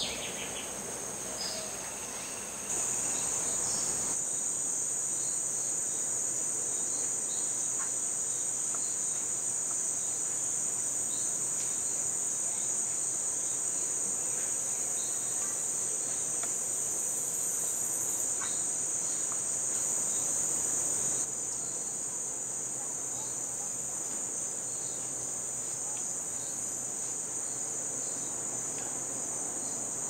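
A steady, high-pitched drone from a chorus of rainforest insects, unbroken throughout. It gets louder about three seconds in and drops back slightly about two-thirds of the way through.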